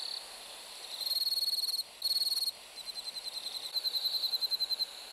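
Crickets chirping in a summer evening field: rapid high-pitched pulsed trills about a second and two seconds in, then a steadier run of evenly spaced chirps.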